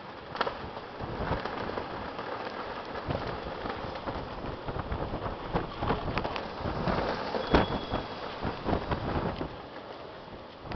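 Storm rain falling, with uneven gusts of wind buffeting the microphone in low rumbles. The strongest gust comes about seven and a half seconds in, and the wind eases near the end.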